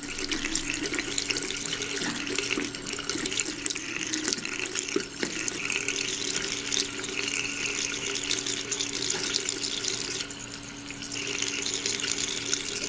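Thin stream of water running from a bathroom sink faucet and splashing into the basin, with a steady low hum underneath.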